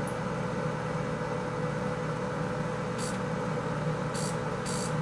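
K40 CO2 laser cutter running with a steady hum, with short high-pitched crackles about three seconds in and twice more near the end. The crackles are high-voltage arcing from the supply as the tube is fired; the tube glows but puts out no beam.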